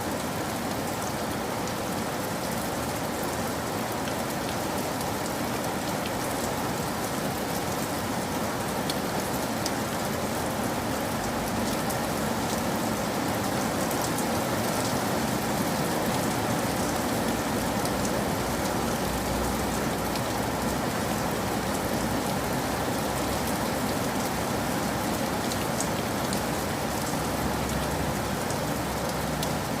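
Steady heavy rain falling on a surface, a dense hiss with individual drops ticking through it. A low rumble comes in underneath about a third of the way in.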